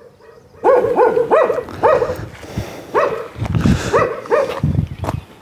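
A dog barking repeatedly, about seven short barks in quick groups.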